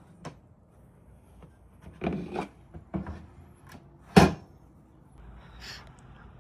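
Handling knocks and clicks of tools and the ECU circuit board on a workbench during soldering. There are several separate knocks, the loudest about four seconds in, followed by a short rubbing sound.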